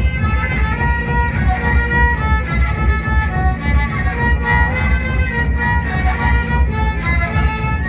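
Violin playing a lively melody over a steady low, pulsing beat: dance music.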